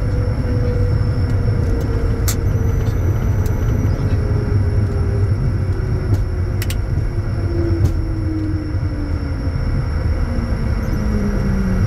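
Bombardier Challenger 350 jet heard from inside the cockpit: a steady low rumble with a tone that slowly falls in pitch, a faint high steady whine, and a few sharp clicks.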